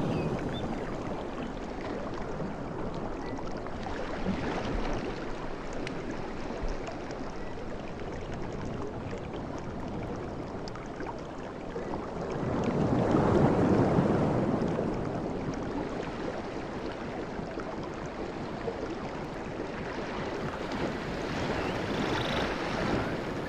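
Sea waves washing onto a beach, a steady wash of surf with one larger wave surging in and breaking about halfway through.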